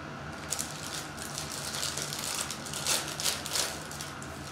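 Foil trading-card pack wrapper being opened and crinkled in the hand: irregular crackling rustles, loudest about three seconds in.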